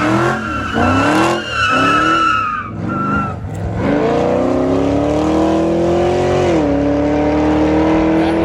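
A Chevy SS sedan's LS3 V8 with long-tube headers revving in quick swells while the tyres squeal. About four seconds in it pulls hard under full throttle, its pitch rising steadily, dropping briefly at an upshift and then climbing again.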